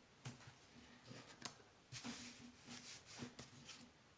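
Faint, scattered clicks and taps of thin wooden puzzle pieces being handled and slotted together.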